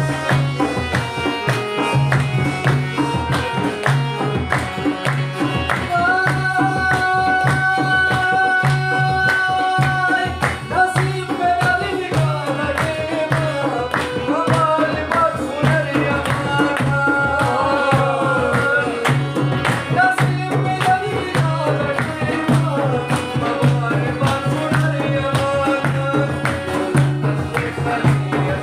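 Live folk dance music: a harmonium carries the melody, holding a sustained chord for a few seconds near the middle, over a steady, even beat on a hand-played frame drum.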